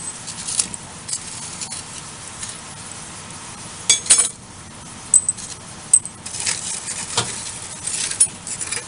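Small steel punches clinking against one another and the metal tin while fingers rummage through crushed charcoal, which rustles between the clinks. The clinks come irregularly, with a quick cluster about four seconds in and another near the end.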